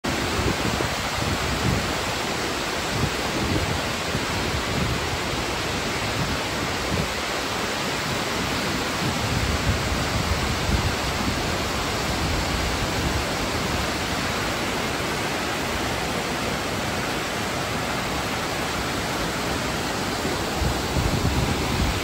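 Tall waterfall with many strands falling down a cliff into a rocky stream: a steady, even rush of falling water, with an uneven low rumble beneath it.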